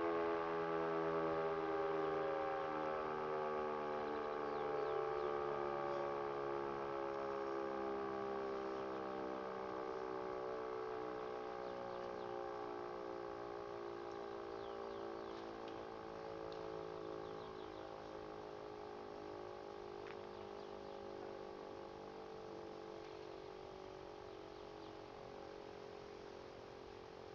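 E57 motor siren winding down after being switched off: a wail whose pitch falls slowly and steadily while it fades gradually as the rotor coasts to a stop.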